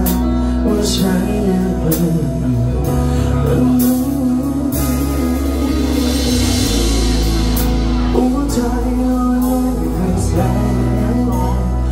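Live band music: a man sings into a microphone over an electric bass guitar and a steady beat.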